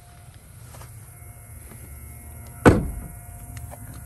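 A van's front passenger door shutting, one heavy thud about two and a half seconds in, over a low steady rumble.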